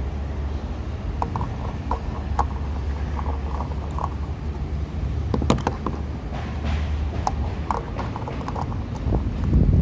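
Plastic fuel filler cap being screwed into a car's filler neck by hand, with scattered small clicks and then several sharper clicks about five to eight seconds in as it is tightened. A steady low hum runs underneath throughout.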